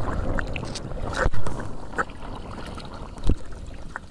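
Kayak paddle dipping and splashing in shallow water, with water dripping from the blade, and two sharp knocks, about a second in and past three seconds.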